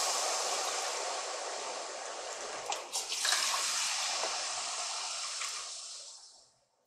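Chicken broth poured into a pot of hot butter-and-flour roux, sizzling and hissing and slowly dying down. A second cupful about three seconds in sets it hissing again, with a few light metal clinks of the measuring cup against the pot. The sound stops abruptly near the end.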